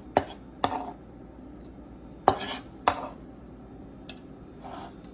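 A utensil knocking and scraping against a bowl while diced tomato and garlic are stirred together: five or six sharp, uneven clinks.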